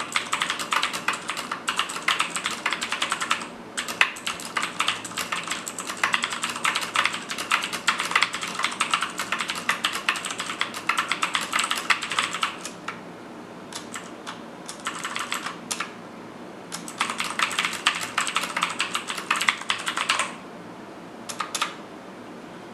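Fast typing on a Cooler Master QuickFire XTi mechanical keyboard with clicky Cherry MX Blue switches: a rapid stream of key clicks. The typing breaks off about halfway through with only a few scattered keystrokes, runs fast again for a few seconds, and ends with a couple of last clicks.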